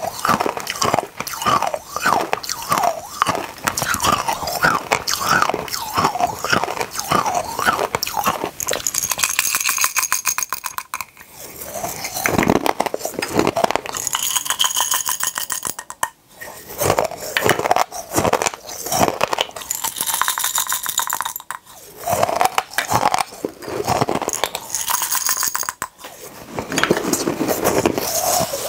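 Eating small hard candies close to the microphone: crunching, biting and chewing, with stretches of rapid clicking and crackling.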